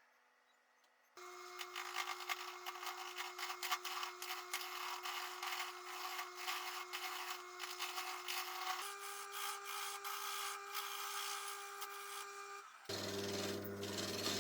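Wood lathe running with a steady hum while a turning tool cuts the spinning block of wood and epoxy resin, a dense rapid scraping and ticking. The hum steps up in pitch partway through and changes to a deeper hum near the end.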